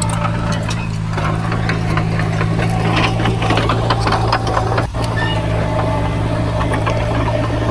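Heavy diesel engine of earthmoving machinery running steadily, with many short clanks and rattles over it.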